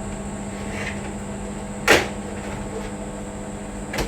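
Microwave oven running with a steady hum while food heats, with a sharp click about two seconds in and a smaller one near the end.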